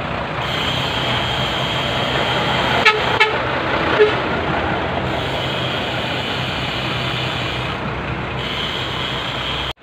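A column of large military trucks idling, heard from a moving bicycle with wind and road noise on the microphone. There is a steady low hum, a high steady whine that comes and goes, and two short clicks about three seconds in.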